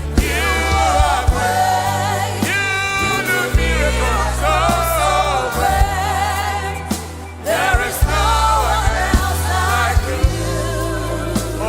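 Live gospel worship music: a lead melody with strong vibrato over a steady bass line and light drum hits, with a brief drop in the music about seven seconds in.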